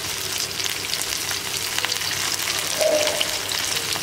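Marinated prawns sizzling and crackling in shallow oil in a non-stick pan over medium flame, with a spoon turning them. A brief tone sounds about three seconds in.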